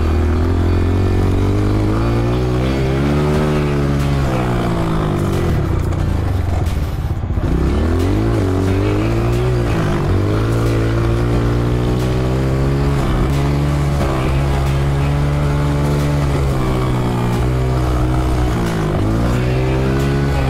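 Honda CRF125F dirt bike's single-cylinder four-stroke engine being ridden hard, its revs rising and falling repeatedly, with a brief drop in revs about seven seconds in.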